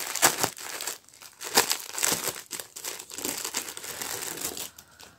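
Thin clear plastic packaging crinkling and rustling in irregular crackles as hands work a soft cloth bag out of it.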